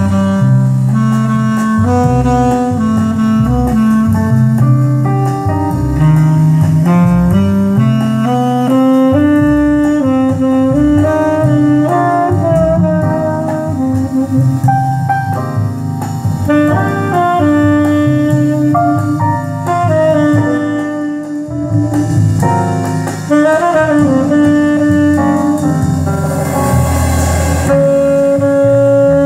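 Jazz with a saxophone playing the lead line, played back through a Kenwood R-SE7 stereo integrated amplifier running in Class A mode and its loudspeakers.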